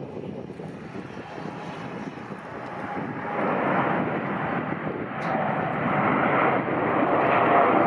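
Boeing 787-9 airliner's twin GEnx turbofan engines at takeoff power during lift-off. The rushing jet noise grows clearly louder about three seconds in, and a steady whine comes in near the end.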